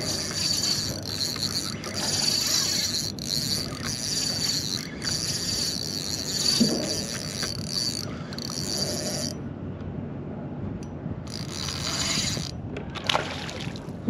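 Spinning reel being cranked as a hooked fish is fought on a rod, its rotor whirring.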